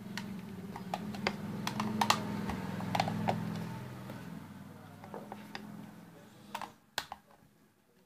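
Screwdriver clicking and scraping against a bolt on a ceiling fan's metal motor housing while trying to undo it; the bolt won't come loose. Scattered sharp clicks over a low hum that fades out near the end.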